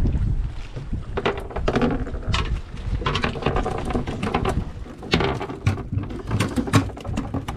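Freshly caught mackerel thrashing on the hooks and flapping against the boat's fibreglass deck, making irregular slaps and knocks.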